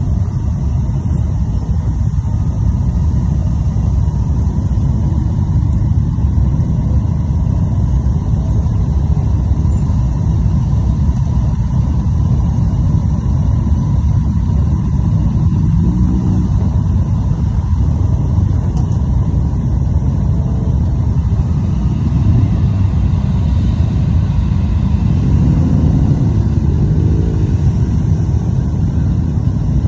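A large pack of motorcycles riding past in procession: a continuous, loud rumble of many engines. Individual bikes rev audibly around the middle and again near the end.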